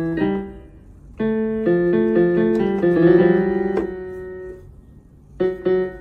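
Electronic keyboard with a piano sound, its keys pressed one note at a time: a couple of notes at the start, a run of notes in the middle, and two short notes near the end, each ringing and fading.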